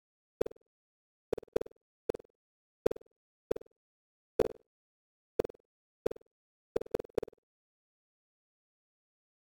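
Computer-generated bounce sounds of virtual boxes for a surround-sound test: short blips with a mid pitch, each dying away fast, about a dozen at irregular intervals, with a quick cluster of three around seven seconds in.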